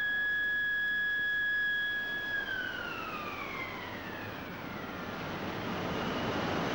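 A steady high whine that holds for about three seconds, then slides down in pitch and fades, while a rushing roar builds up underneath it: a Bessemer converter in its blow, with sparks pouring from its mouth.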